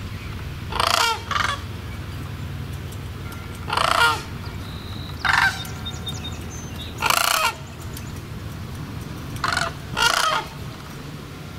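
Sandhill crane giving a series of loud, rolling, rattling calls, seven in all, each under a second long and a second or two apart.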